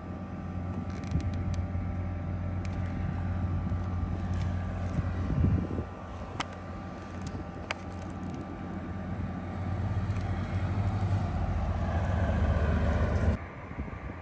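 Steady low mechanical hum with a few light clicks and crinkles from a plastic-wrapped frozen sushi tray being handled; the hum drops away abruptly near the end.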